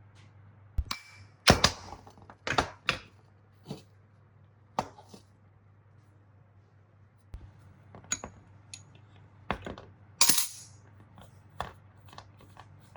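Irregular clinks and knocks of small metal parts and hand tools being handled and set down, about a dozen sharp strikes with the loudest about a second and a half in and again about ten seconds in.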